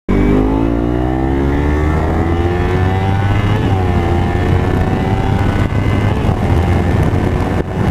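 Motorcycle engine accelerating hard, its pitch climbing steadily for about three and a half seconds. After a brief dip, as at a gear change, it climbs more slowly.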